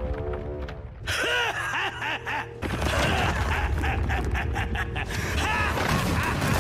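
Animated fight sound effects: a steady low rumble of collapse, with sweeping whooshes of flying debris after about a second and a quick run of sharp cracks of breaking stone in the middle. A held music chord fades out in the first second.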